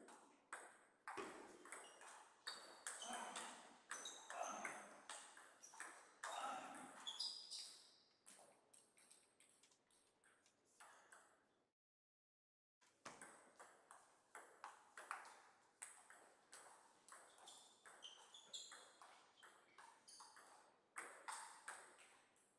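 Table tennis ball clicking off the bats and the table during rallies, sharp knocks several times a second with a short break about halfway through.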